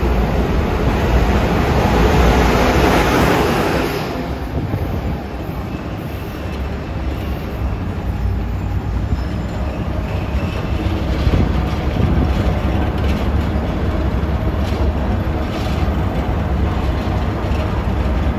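Passenger train passing on the rails: a loud rush of wheel and air noise for about the first four seconds, then a lower steady rumble of wheels on track with faint clicks.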